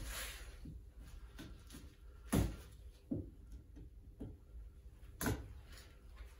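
Two sharp clicks about three seconds apart, with fainter clicks and handling noise between, from a small hand tool trimming the loose tails off the cord ties on the bagpipe drones.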